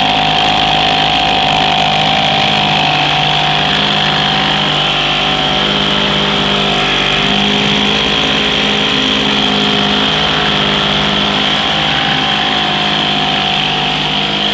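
Sears Elgin 2.5 hp single-cylinder two-stroke outboard motor running steadily in a test tank, starting and running fairly well on a fuel tank hooked up above it.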